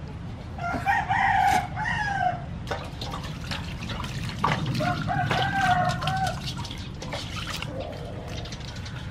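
A rooster crowing twice, each call lasting about two seconds, over water splashing and dripping as a plucked chicken is washed by hand in a metal basin.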